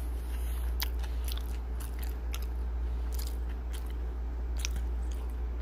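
A mouthful of double cheeseburger with extra pickles being chewed close to the microphone: irregular wet mouth clicks and soft crunches over a steady low hum.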